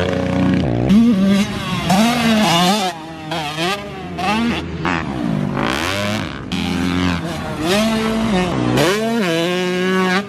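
Dirt bike engines revving up and easing off over and over, the pitch climbing and dropping about once a second.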